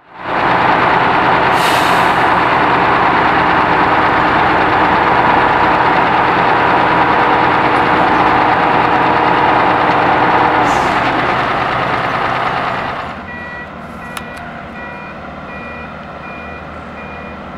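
Heavy road-works vehicle engine running loudly, then dropping away about 13 seconds in. A reversing alarm then beeps steadily, a little under two beeps a second.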